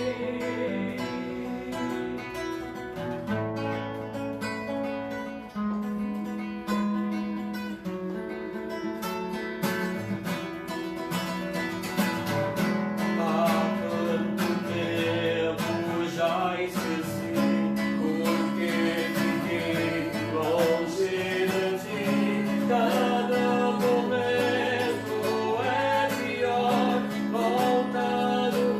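Live song: a guitar accompanying a singing voice, the strumming growing denser and louder about ten seconds in.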